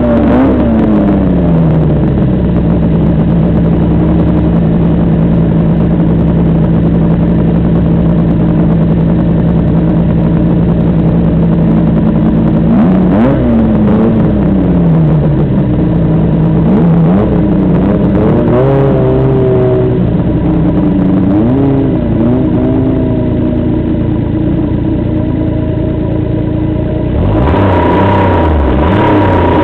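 Snowmobile engine running under way: it holds a steady pitch for about ten seconds, drops about thirteen seconds in, then rises and falls with the throttle. Near the end the engine note drops low and a steady higher whine comes in.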